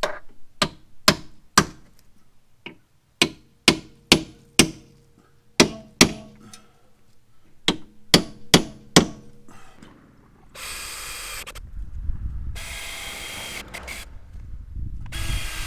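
A string of sharp taps in small groups, then a power drill running in three short bursts near the end, drilling pilot holes in an aluminum inner fender.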